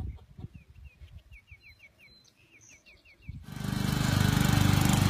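A riding lawn mower's engine runs loud and steady. It cuts in suddenly about three and a half seconds in, after a quieter stretch of low thumps and a quick run of short, high chirps.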